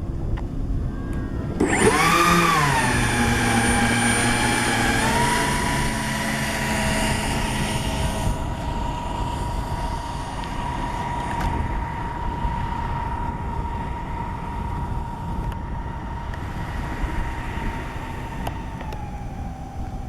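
Twin 127 mm electric ducted fans of a large RC MiG-31 model jet spooling up about two seconds in, their pitch swooping before settling into a steady high whine. The whine drops slightly in pitch near the end.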